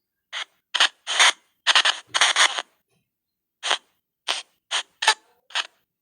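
Spain Paranormal White Noise Box spirit-box app playing about ten short, chopped bursts of noisy, garbled sound, each cut off to dead silence. There is a longer pause near the middle.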